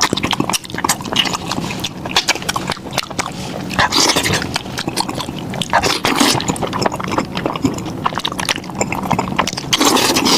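Close-miked eating: wet chewing and lip-smacking on gelatinous beef trotter, a dense, irregular run of clicks and squelches.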